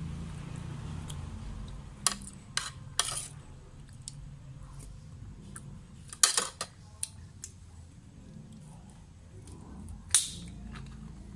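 Metal spoon and fork clicking against the dish while eating noodle soup: three clicks about two to three seconds in and a louder one about six seconds in. Near the end a plastic soda bottle's cap is twisted open with a short fizzy hiss.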